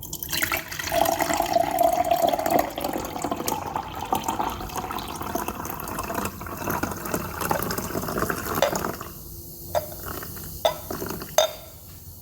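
Liquid being poured and splashing for several seconds as two chemical solutions are mixed, then dying away, with a few sharp clicks near the end.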